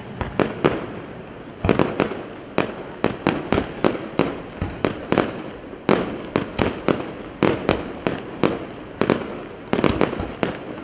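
Aerial fireworks bursting: a rapid, irregular run of sharp bangs, several a second, with crackling between them.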